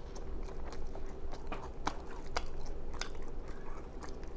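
Close-miked chewing of a mouthful of food, with irregular wet lip-smacking clicks, several each second.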